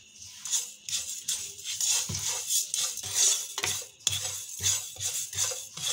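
Sesame seeds being stirred with a spatula in a nonstick frying pan as they dry-roast: repeated scraping, rustling strokes, two or three a second.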